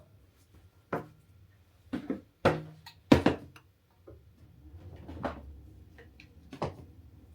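A series of sharp knocks and clunks, about seven, irregularly spaced and loudest about three seconds in, as kitchen items are handled and set down.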